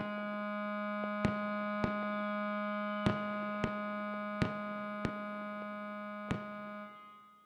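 Film score: a single long held clarinet note, steady and then fading away near the end, crossed by sharp clicks that come in pairs about half a second apart.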